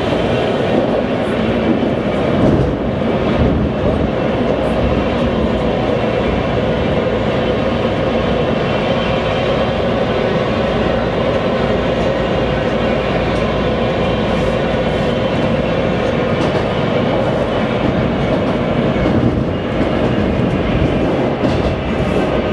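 Washington Metro Red Line train running at speed, heard from inside the lead car: a steady rumble of wheels on rail with a few faint clicks from the track.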